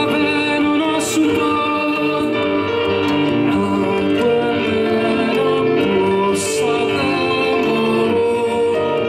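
Live song: a woman singing held, sustained notes, accompanied by acoustic guitar and keyboard.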